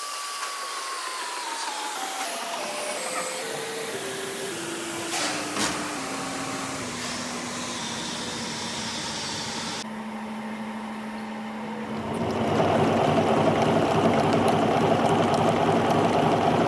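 Metal lathe with a steel bar in its chuck, its whine falling steadily in pitch as it slows, with a couple of short knocks midway. From about twelve seconds a louder, steady machining noise follows as the lathe turns the bar while a centre drill in the tailstock chuck bores into its end.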